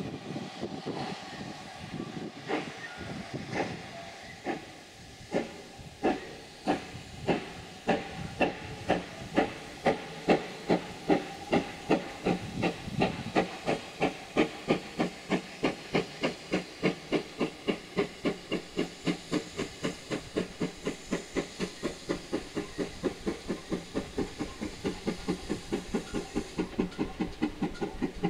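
GWR 2884-class 2-8-0 steam locomotive No. 3850 accelerating with a train of coaches. Its exhaust beats quicken from about one a second to about three a second as it gathers speed, over a steady hiss of steam.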